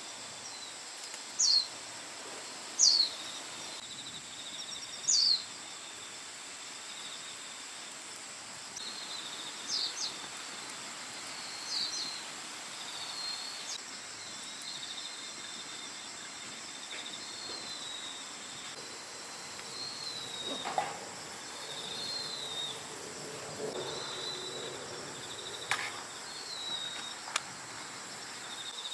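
Birds calling over a steady high trill of insects. Three loud, sharp falling chirps come in the first five seconds, followed by softer, shorter falling calls, and a couple of faint clicks near the end.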